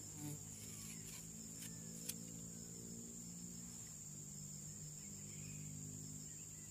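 A steady, high-pitched drone of insects, with a low steady hum underneath and a few faint clicks.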